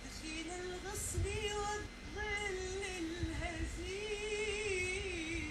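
A woman singing a slow Gulf Arabic song in several long held phrases, her voice wavering with vibrato on the last phrase before it falls away. The voice is unprocessed, with no audio effects.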